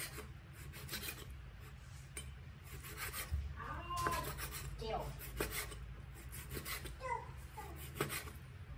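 Chef's knife slicing raw beef on a wooden cutting board: the blade rasps through the meat and knocks against the board again and again at an uneven pace, about once a second.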